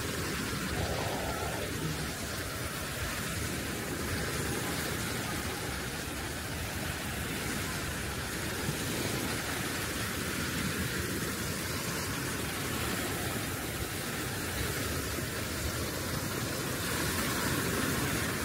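Steady rushing noise of ocean surf on a beach, a little louder near the end.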